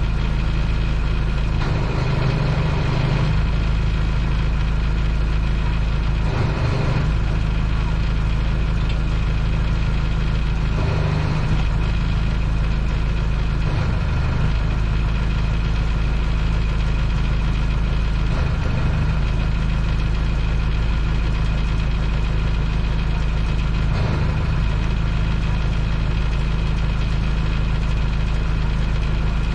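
Boat engine running steadily at low revs, a constant deep hum that hardly changes.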